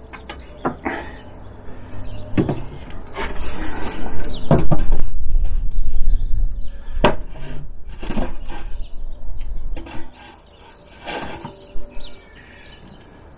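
Wooden knocks and clatter of a plywood board being laid on a sawhorse and a bar clamp being fitted and tightened onto it, with one sharp knock about halfway through.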